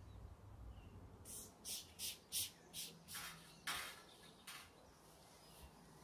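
A cloth wiped back and forth across a glass tabletop: a quick run of about eight short swishes, roughly three a second, starting about a second in.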